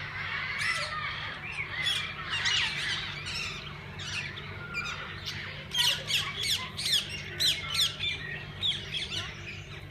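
A flock of parakeets squawking and chattering, many calls overlapping. In the second half comes a run of loud, sharp screeches, about two a second, over a steady low hum.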